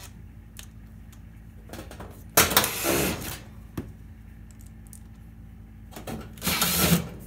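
Cordless drill-driver running in two short spurts of about a second each, driving the screws that fasten the sheet-metal terminal cover on the back of an electric range. There are a few light clicks between the spurts.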